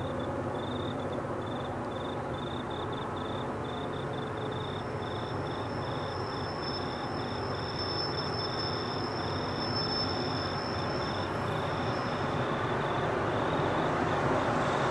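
Crickets chirping in a steady pulse, about three chirps a second, with a second insect trilling for several seconds in the middle. Under them the low rumble of the approaching grain train's diesel-electric locomotives slowly grows louder.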